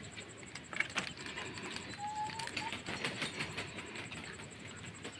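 Faint bird calls, with one short rising call about two seconds in, over scattered light clicks and rustling.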